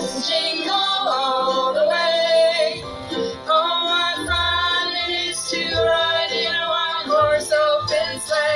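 Music with a woman singing over an accompaniment.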